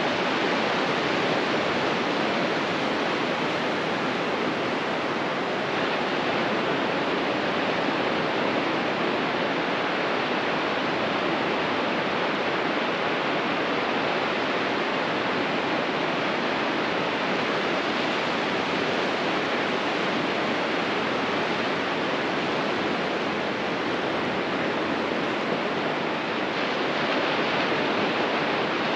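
Ocean surf washing steadily onto a beach, heard as an even, unbroken roar with no single wave standing out.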